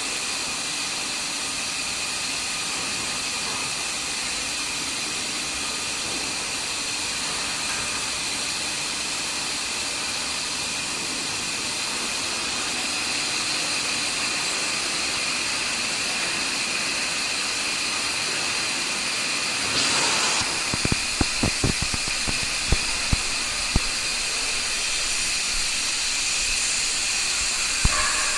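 Steady loud industrial hiss with a few high, whistling tones held through it. From about two-thirds of the way in come several short, low knocks and thumps.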